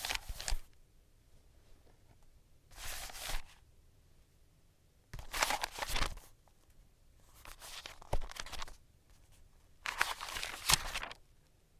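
Sheets of paper stickers and ephemera rustling and crinkling as they are handled and laid down, in about five short bursts a couple of seconds apart.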